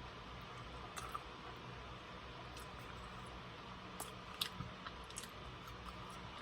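A few soft clicks and mouth noises of someone eating, over a faint steady low hum.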